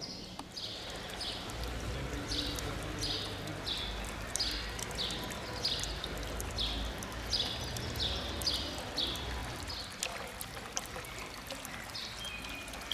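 Town fountain's spout pouring water steadily into its stone basin. A bird chirps over it in short, quick repeated high notes, stopping about three quarters of the way in.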